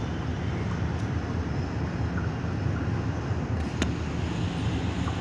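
Mixed freight train rolling past, a steady low rumble of wagons on the rails, with one sharp click a little under four seconds in.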